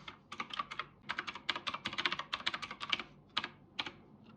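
Fast typing on a computer keyboard: a quick run of key clicks that thins out to a few single keystrokes near the end.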